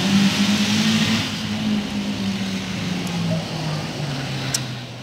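An engine running steadily, its pitch dropping a little past the middle, over a hiss. A single sharp click comes about four and a half seconds in.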